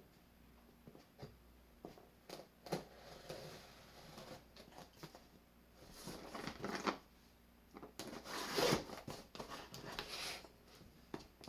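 A parcel being handled and opened by hand: scattered light clicks and taps, then bursts of rustling and tearing packaging, loudest in the second half.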